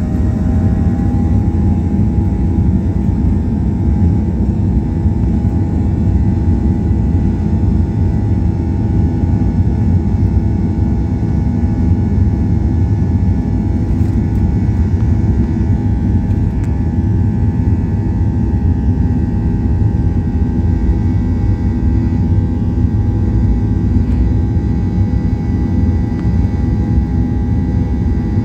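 Boeing 737-800's CFM56-7B turbofan engines at take-off thrust, heard from inside the cabin during the take-off roll: a loud steady rumble under a steady whine that rises and settles about a second in.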